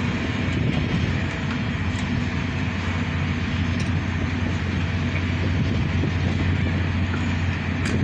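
Sandstorm wind rushing steadily over the microphone, over a constant low mechanical hum, with a few light clicks.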